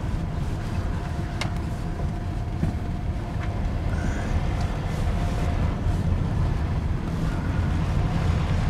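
Moving van heard from inside the cabin: a steady low rumble of engine and road noise, with a faint steady whine and a few light clicks.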